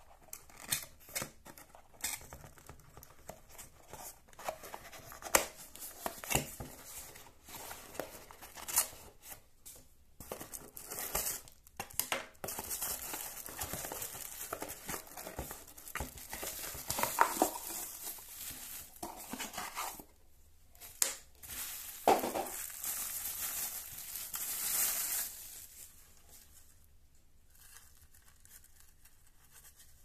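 Cardboard packaging being opened and handled, with scrapes and taps, then a plastic bag crinkling and rustling as a mini desktop vacuum cleaner is pulled out of the box and unwrapped.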